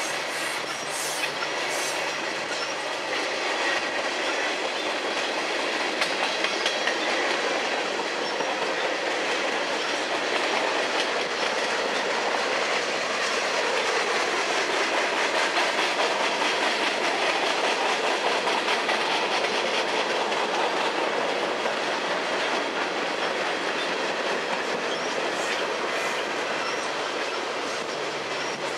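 A long mixed freight train's cars rolling steadily past, their steel wheels clattering over the rail in a rapid, continuous clickety-clack.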